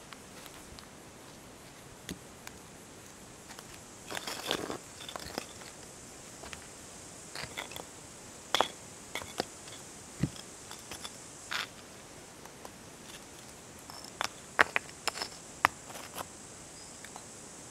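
Stones being set down on sandy dirt and knocked against one another while a fire ring is built: irregular sharp clicks of rock on rock, scraping and shuffling as they are bedded in, with a duller knock about ten seconds in and a quick run of clicks near the end.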